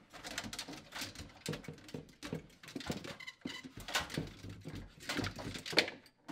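Metal defrost heater element being worked free from a refrigerator's aluminium-finned evaporator coil: a run of irregular scrapes, clicks and rattles, loudest near the end.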